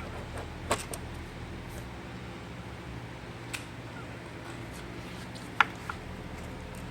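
A few light, sharp clicks of hand tools and small metal parts being handled, over a steady low hum; the loudest click comes a little past the middle, with a smaller one just after it.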